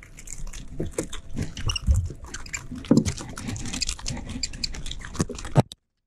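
Irregular slaps, knocks and taps of a small, freshly landed mahi-mahi thrashing on the line against the angler's hand and the jet ski, mixed with handling noise. The sound cuts off suddenly near the end.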